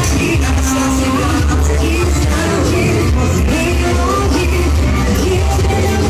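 Loud music with a singing voice over heavy, steady bass, played at volume through a car sound system's speaker wall (paredão).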